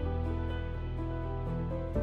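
Soft background music of held, sustained chords, with a new chord coming in at the very end.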